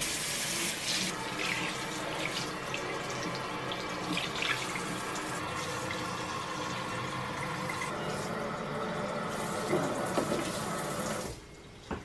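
Pull-down kitchen faucet sprayer running, a steady spray of water rushing onto the bottom of the sink as the sink is rinsed out. The water shuts off abruptly near the end.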